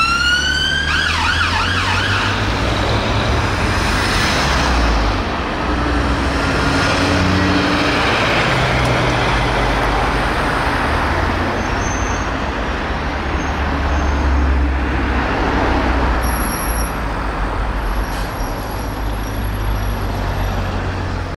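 An emergency siren finishes a rising wail, then gives a brief fast warble in the first two seconds. After that comes the steady low rumble of a fire engine's diesel engine over traffic noise.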